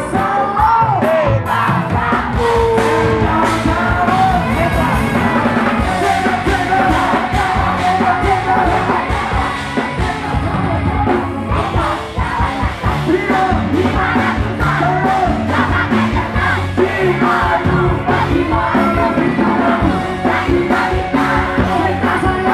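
Live band playing over a PA: a singer's melody over drum kit and electric guitar with a steady beat, and the crowd shouting along.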